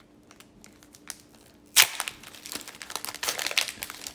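Crinkling and crackling of a hockey trading-card pack's plastic wrapper being handled. It is fairly quiet at first, then a sharp loud crackle comes a little under two seconds in, followed by continuous rustling.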